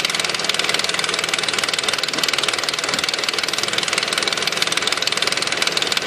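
2005 Nissan Quest's 3.5-litre V6 idling with a fast, even rattle from the front of the engine.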